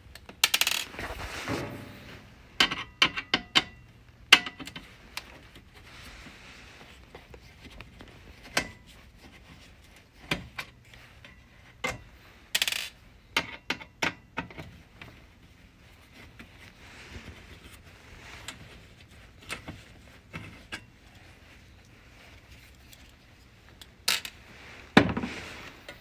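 Screws being backed out of a microwave's control circuit board with a screwdriver: small metallic clicks, taps and clatters at irregular intervals as the tool works and the loose screws are set down on the metal casing.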